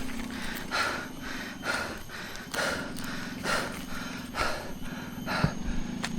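A person breathing hard in a steady rhythm, about one breath a second, over a low steady hum.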